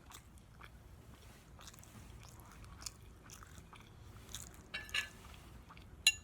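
Close-miked chewing of soft, syrupy pancakes: faint wet mouth sounds and small scattered clicks, with a brief louder cluster after about four seconds and one sharp click near the end.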